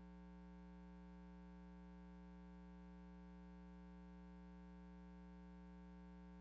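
Near silence with a faint, steady electrical hum that does not change.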